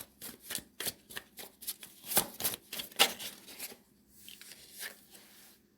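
A deck of tarot cards being shuffled by hand: a quick run of sharp card snaps and slaps, going over into a softer rustle of cards before it stops shortly before the end.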